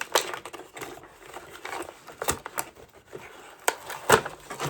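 Toy packaging being worked open by hand: scattered clicks, crinkles and a few sharper snaps of cardboard and plastic, the loudest in the second half.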